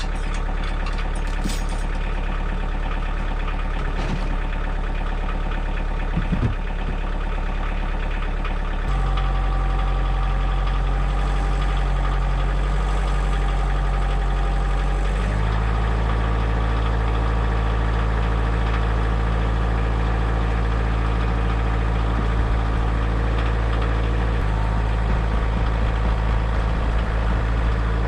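Diesel engine of a Kioti DK40se compact tractor running steadily. It gets louder with a change in engine speed about nine seconds in, and its pitch shifts again about halfway through and near the end.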